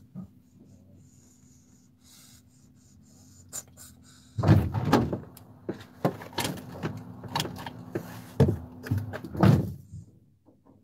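A run of knocks and clattering bangs inside a van, starting about four seconds in and lasting about five seconds.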